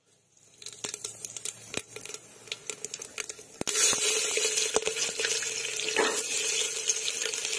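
Hot oil in an aluminium pot crackling with scattered pops, then about halfway through chopped garlic and chillies go in and it breaks into a loud, steady sizzle: the tempering (tadka) for a bottle-gourd curry.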